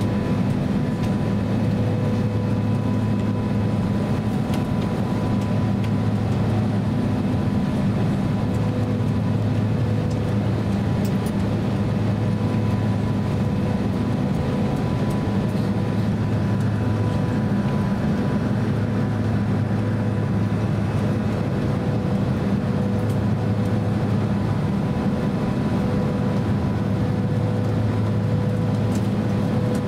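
Cabin noise of a Boeing 767-300 taxiing after landing: a steady low drone with a thin, steady high tone over it.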